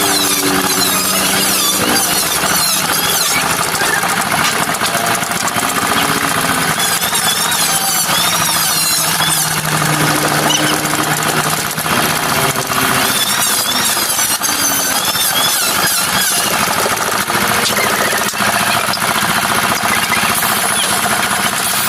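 Handheld power carving tool cutting into MDF: a continuous loud, shrill squealing whine that wavers up and down in pitch as the bit loads and unloads.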